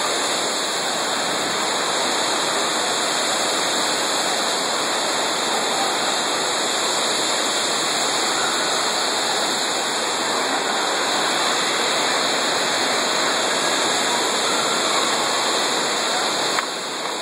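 Torrential rain of a severe thunderstorm pounding on a mall atrium's skylight roof, heard from inside beneath it as a loud, steady rush of noise.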